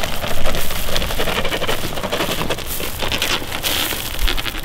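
Shelled corn pouring from a sack onto grass and dry leaves: a continuous pattering of kernels hitting the ground.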